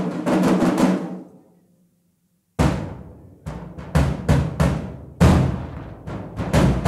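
A marching drumline of snares, tenor drums, bass drums and cymbals plays a cadence. The drumming rings out and stops about a second in, goes silent, then comes back a little over two seconds in with a loud accented hit, followed by spaced accents and fills.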